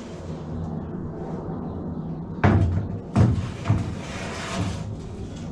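A bare 22-inch chrome Cadillac Escalade wheel set down into a pickup's steel bed: three heavy metal clunks about two and a half, three and three and a half seconds in, over a steady low hum.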